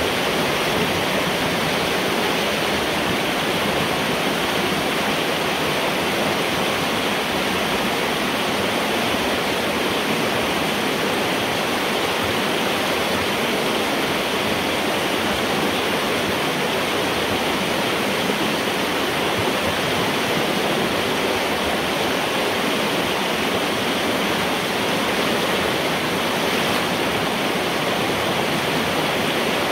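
Flood water rushing steadily through a metal culvert pipe, draining as the beaver dam blocking it is pulled out, heard from inside the pipe.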